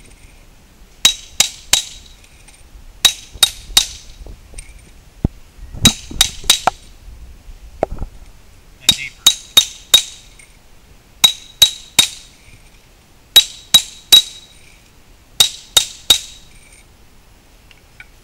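Hammer striking a masonry chisel on a retaining-wall block, in quick runs of three or four sharp taps about every two seconds, each with a short metallic ring. The chisel is deepening a scored groove along a marked line so the block can be broken to size.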